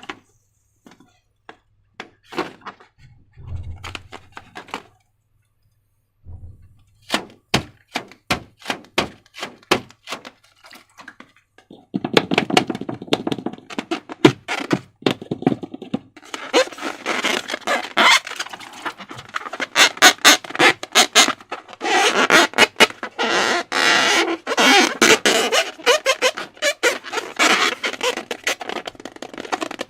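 Slime and balloon materials being handled, starting with sparse taps and clicks and then a run of separate taps. From about twelve seconds in, a dense, continuous crackling of rapid clicks takes over, typical of slime being worked.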